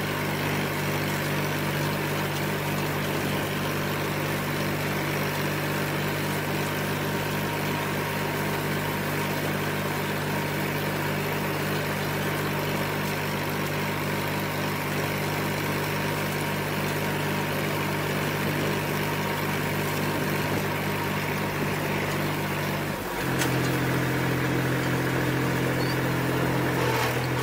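Tractor engine running steadily while driving a rotary hay rake through cut hay, with a fast regular pulse in its note. The engine note changes suddenly about three-quarters of the way through.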